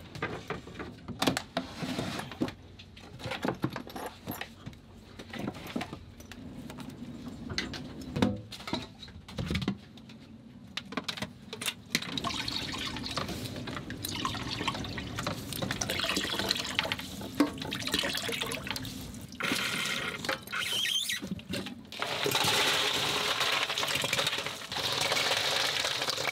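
Clicks and knocks of handling at first, then water running steadily from a hose. Near the end the water is louder as it splashes over ice in a cooler.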